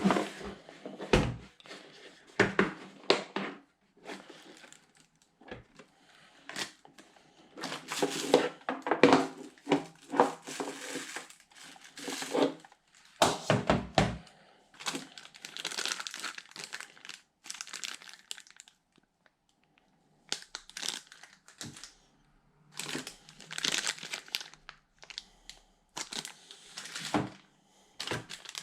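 Packaging being handled: crinkling and rustling of plastic and cardboard in irregular spells, with scattered knocks and clicks.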